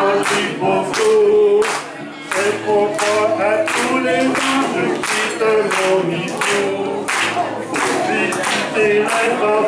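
A group of voices singing a nursery rhyme together, with steady hand-clapping on the beat, a little under two claps a second.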